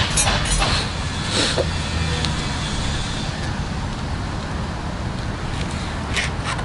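Steady low rumble of road traffic in the background, with a few short sharp clicks in the first second and a half.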